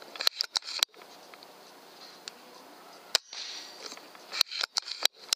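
Sharp clicks and cracks from a .22 air rifle being shot and handled, in two clusters: several in quick succession about half a second in, and another run in the last second and a half, with a single crack just after three seconds in.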